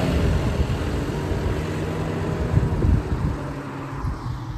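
A motor vehicle running with a low rumble, getting quieter after about three seconds.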